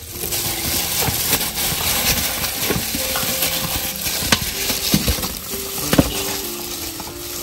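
Hands rubbing a wet marinade into a whole duck in a basin: a steady wet squishing and rustling, with a couple of sharp knocks about four and six seconds in.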